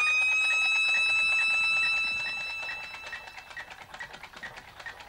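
Electronic time-machine sound effect: a whine that has just swept up in pitch holds steady, then fades away over the next few seconds. Under it runs a faint pulsing beep, about three a second.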